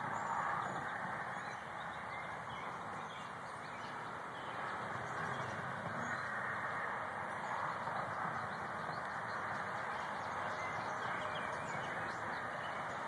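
Steady outdoor background noise with faint, scattered bird calls.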